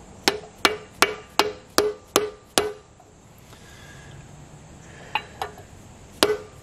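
A mallet striking a 2.5-inch spindle nut socket used as a seal driver, tapping a new pinion seal into a Dana 60 differential housing: seven quick strikes about two and a half a second, each with a short metallic ring. After a pause of about two and a half seconds come a couple of light taps, and the strikes start again near the end.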